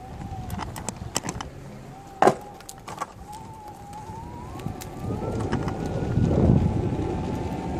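Dolphin One D5 electric unicycle's hub motor whining, its pitch rising as it speeds up and then settling. A few sharp clicks come in the first three seconds, and a rough rush of tyre and wind noise grows louder from about five seconds in.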